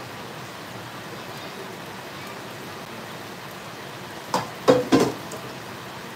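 Kitchen cookware clattering: three quick knocks in a row, a little over four seconds in, over a steady low hiss.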